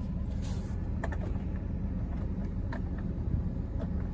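Chevrolet 8.1-litre big-block V8 idling steadily, heard from inside the truck's cab, with a few faint clicks over the top.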